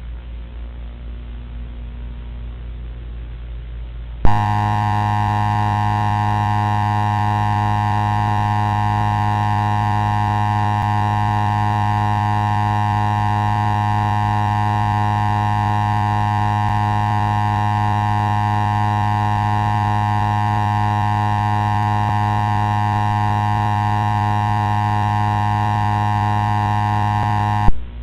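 Loud, steady, buzzy electronic alert tone with many overtones. It comes in with a click about four seconds in, holds unchanged for over twenty seconds, and cuts off with a click near the end. Before it there is faint hiss with a low hum.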